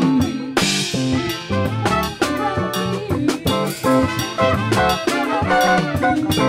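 A live band playing: a horn section of saxophone and two trumpets over drum kit and electric guitars, in a percussion-driven groove, with a cymbal crash about half a second in.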